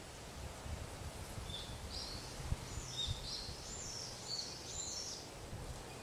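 A songbird singing a run of quick, high, sliding notes that starts about one and a half seconds in and stops a little before the end, over a low rumble.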